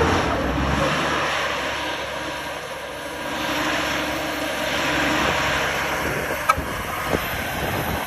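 Diesel engine of an overloaded Sinotruk HOWO dump semi-truck labouring as it hauls its load along a dirt road. A low engine drone fades after about the first second, leaving a rushing mix of engine and tyre noise that swells and ebbs, with a sharp click about six and a half seconds in.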